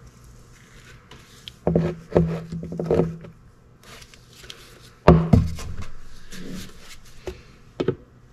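Plastic bottles knocked and set down on a wooden workbench. There is a cluster of knocks about two to three seconds in, a louder pair about five seconds in and a few light taps near the end, with a soft rustle of gloved hands handling the bottles.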